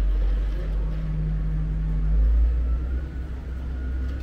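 A motor vehicle's engine running nearby: a steady low rumble, with a faint whine that rises about two and a half seconds in.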